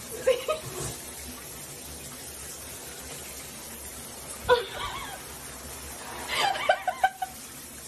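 A person snickering in three short bursts of laughter, the longest near the end, over the steady hiss of a running shower.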